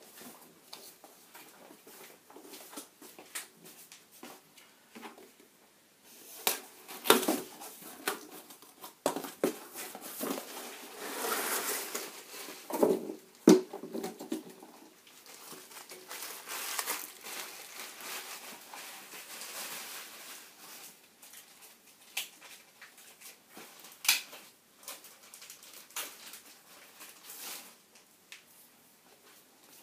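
Rustling and crinkling of packaging, broken by scattered clicks and knocks, with one sharp knock about halfway through, as things are rummaged through and handled on the bench.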